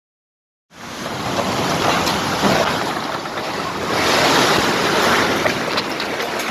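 Heavy rain pouring down in strong gusting wind: a dense, loud hiss that starts just under a second in and swells about four seconds in.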